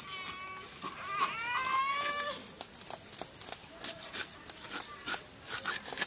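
An animal calls twice in the first two seconds, high-pitched, the second call rising in pitch. Scattered sharp clicks and crackles sound throughout.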